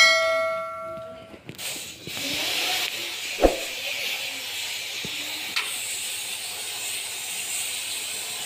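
A jet-cleaner spray hissing steadily as water is blasted into the indoor unit of an old Mitsubishi split air conditioner to clean it, starting about a second and a half in, with one dull thump partway through. Before it starts, a bell-like chime rings and fades.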